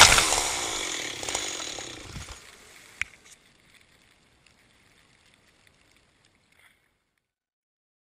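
A felled, snow-covered conifer crashing to the ground: one loud crash at the start, then crackling of branches and falling snow that dies away over about two seconds, a single sharp snap about three seconds in, and then near silence.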